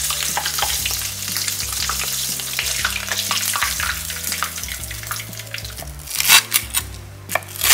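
Breaded ham katsu deep-frying in oil, a dense, steady crackle and sizzle. About six seconds in, a knife cuts through the crisp panko crust with a few loud crunches.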